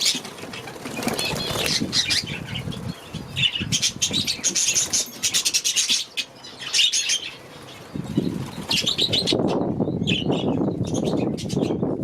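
Budgerigars chattering in quick bursts of high chirps while wings flap. About eight seconds in, a lower flutter of wings takes over and the chirping thins out.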